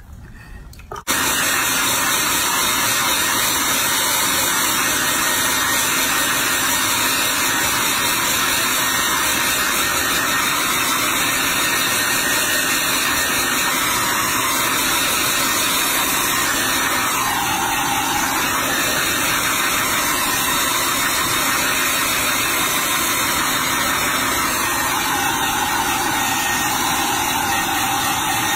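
Handheld hair dryer blowing steadily, starting abruptly about a second in: drying a freshly bathed baby monkey's fur.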